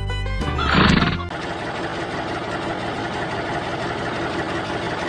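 Intro music ending in a loud swell about a second in, then a steady, even engine-like running sound from the miniature tractor.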